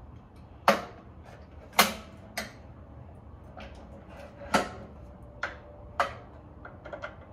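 Metal clanks and clicks from the folding scissor-leg cart of a Weber Traveler portable gas grill as it is lifted from the folded position toward cooking height, about six sharp knocks spread over several seconds. A few quick lighter clicks come near the end.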